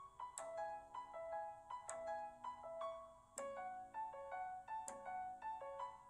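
Background music: a gentle keyboard melody of short piano-like notes, stepping up and down, with a light high tick now and then.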